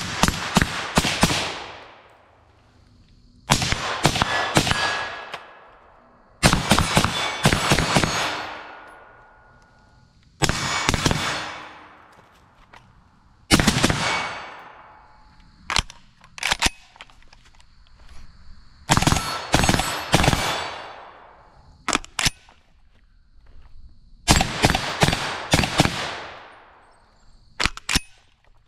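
Suppressed FN SCAR 16S 5.56 short-barrelled rifle, fitted with a Dead Air Sandman S suppressor, fired in quick strings of several shots. About ten strings come every few seconds, and each ends in a fading echo.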